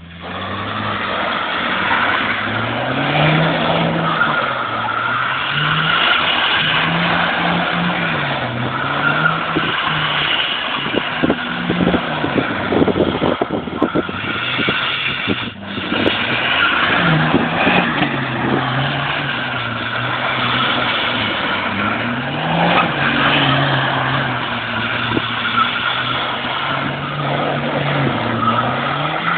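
Skoda Octavia engine driven hard, its pitch climbing and dropping over and over as it shifts through the gears, with tyre noise and a stretch of clatter around the middle.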